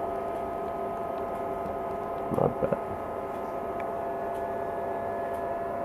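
Steady hum made of several constant tones, with no change in pitch, briefly broken by a short louder sound about two and a half seconds in.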